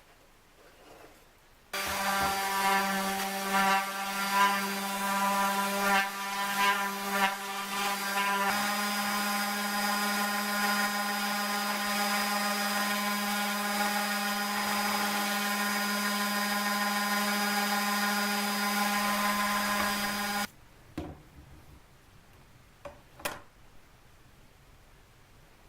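Excalibur 21 scroll saw starting about two seconds in and running with a steady hum while its blade saws wood. The sound is uneven with sharp peaks for the first several seconds, then even, and the saw stops suddenly near the end. A few faint clicks follow.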